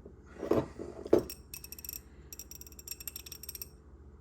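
Half-inch hand ratchet, freshly lubricated, clicking rapidly as it is turned back against its pawl, with very light back drag. Two louder knocks from handling the tool come about half a second and a second in.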